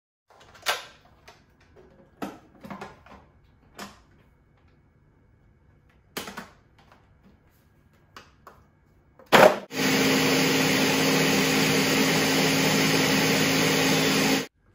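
A few scattered clicks and knocks as the blender jar and control buttons are handled. Then, about ten seconds in, a countertop blender starts and runs steadily at full speed with a constant motor hum, blending frozen cantaloupe chunks with macadamia milk, and cuts off suddenly near the end.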